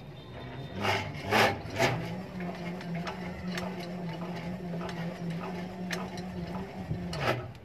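Electric bicycle's rear hub motor, turned by pedalling and working as a generator under the load of a step-up transformer and 220 V bulbs, giving a steady hum. The hum rises in pitch about a second in as the wheel comes up to speed, holds, then drops near the end as pedalling stops. A few knocks from the pedals and drivetrain come between one and two seconds in and again just before the end.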